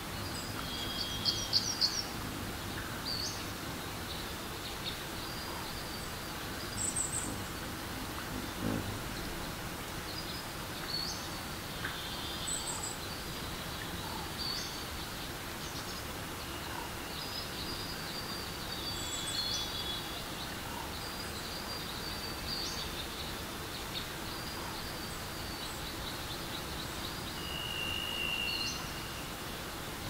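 Steady rush of a forest stream, with songbirds chirping and whistling on and off; a quick run of chirps about a second in is the loudest.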